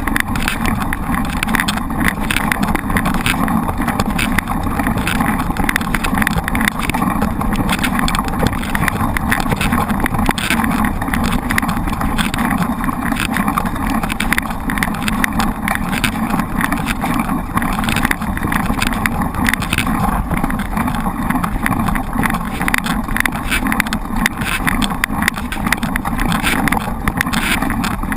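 Steady rushing wind on the microphone of a camera riding along on a mountain bike, with a constant patter of small rattles and clicks from the bike on a rough trail.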